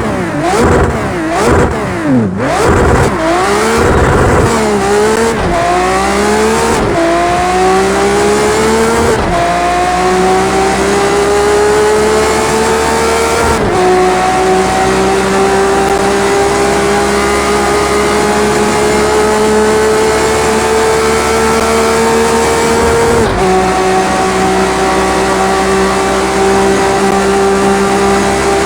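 Ferrari Enzo's V12 engine revving up and down quickly a few times, then accelerating hard through the gears. The pitch climbs in each gear and drops sharply at each upshift, five shifts in all, with each gear lasting longer than the one before.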